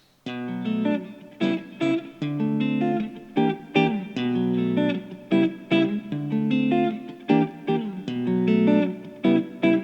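Guitar playing a picked pattern, low bass notes under higher notes, that repeats about every two seconds; it starts a moment in.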